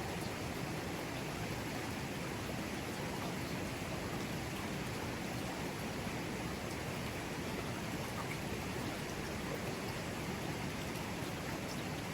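Mountain river flowing over rocks: a steady, unbroken rush of water.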